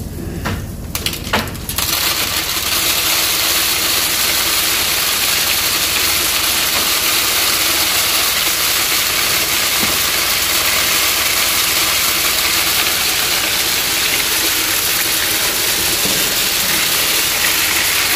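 Corn cracking machine running steadily as it cracks corn, a loud even rushing and humming noise. It comes in suddenly about two seconds in, after a few clicks and knocks.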